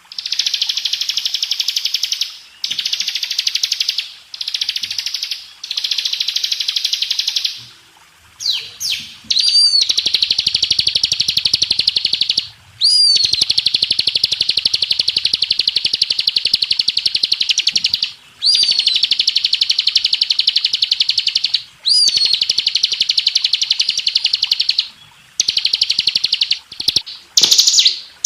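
Bar-winged prinia (ciblek) singing its long, rapid rattling trill, the continuous 'ngebren' song, in repeated bouts of a few seconds with short breaks; several bouts open with a quick falling whistle.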